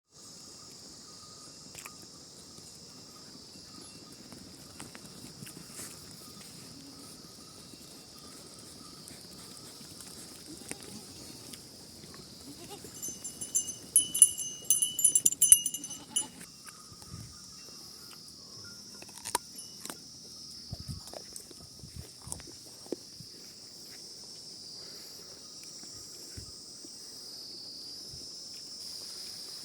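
Goats on a farm, with occasional bleating over a steady high chirring of insects. Near the middle, a brief loud, high jingling rings for a few seconds, and scattered light knocks follow.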